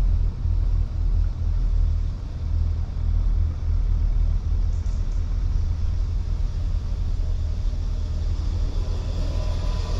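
Car driving slowly along a rough, unsealed country lane: a steady low rumble of tyres and road noise. A faint whine comes in near the end.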